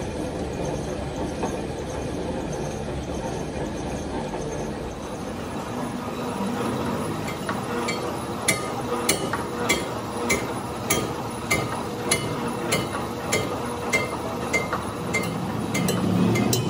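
Engine lathe turning a cast tractor rear axle housing: steady machine running and cutting noise, joined about halfway by a sharp regular tick, a little under two a second.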